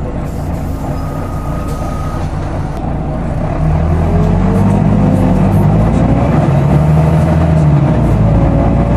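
Volvo B9TL double-decker bus on the move, heard from the upper deck: engine drone with slow rises and falls in pitch, plus the loud cooling fan. The sound gets louder about three and a half seconds in and stays louder.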